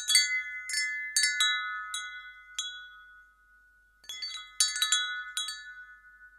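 Wind chime struck in two flurries of several notes each, the notes ringing on and fading away. There is a quiet gap of about a second between the flurries.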